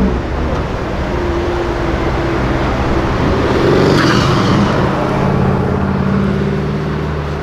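Mercedes-AMG GT R's twin-turbo V8 running as the car pulls away at low speed, getting louder about four seconds in as it passes close by.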